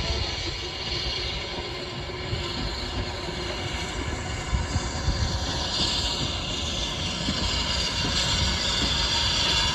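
Small steam tank locomotive running past with a vintage carriage in tow; its running noise grows louder toward the end, with a few sharp clicks about halfway through.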